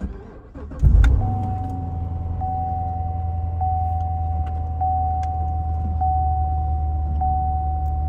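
2014 Corvette Stingray's 6.2-litre LT1 V8 cranked by the starter, catching a little under a second in with a brief loud flare, then settling into a steady idle heard from inside the cabin. A steady high tone, brightening about once a second, sounds over the idle from just after start-up.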